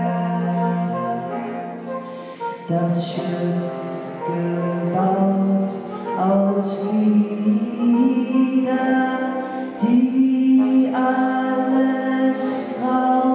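A woman singing a slow German song into a microphone, accompanied by sustained lines on bass clarinet, soprano saxophone and trombone.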